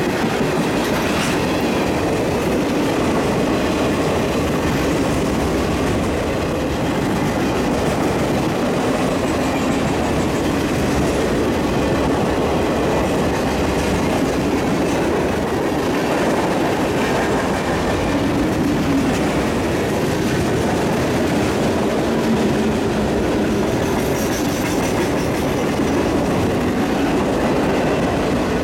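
CSX freight train's tank cars and boxcars rolling past at speed: a steady, loud rumble of steel wheels on rail with clickety-clack over the rail joints, mixed with the hiss of heavy rain.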